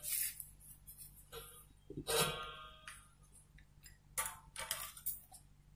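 Scattered light clicks and taps of small hard objects, with a short ringing clink about two seconds in and a quick cluster of clicks around four to five seconds.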